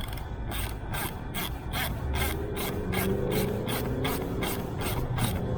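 Ratchet tool clicking steadily, about three to four clicks a second, as a screw is driven in to mount a seat armrest. A low hum comes in about two seconds in.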